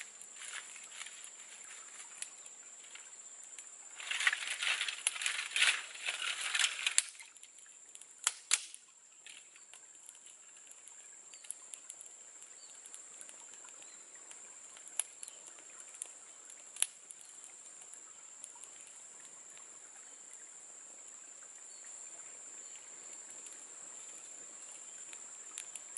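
Small campfire of dry twigs crackling, with scattered single sharp pops. About four seconds in comes a burst of loud, dense crackling and snapping of dry twigs lasting some three seconds, followed by two sharp snaps.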